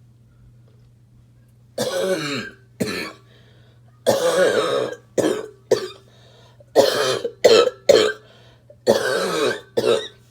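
A smoker's harsh, barking cough: a fit of about ten coughs in quick bunches, starting about two seconds in.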